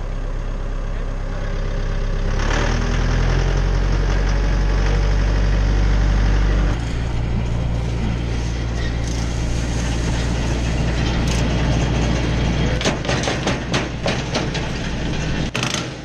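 Tractor engine running and driving a Jinma 8-inch PTO wood chipper. The engine note steps up a couple of seconds in and shifts again near the middle. A quick run of sharp cracks and knocks comes near the end.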